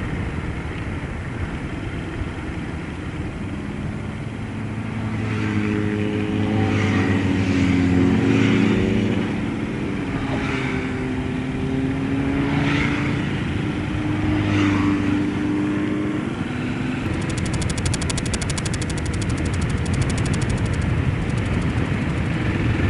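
Yamaha SR400's single-cylinder engine running while the motorcycle is ridden, its pitch shifting up and down with speed through the middle of the stretch, under steady wind noise.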